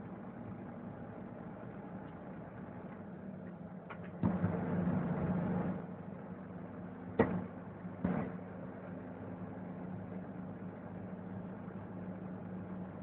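MAN TGA 410 truck's diesel engine running steadily, heard from inside the cab. A louder rushing noise rises over it for about a second and a half around four seconds in, and two sharp knocks come about a second apart a little past the middle.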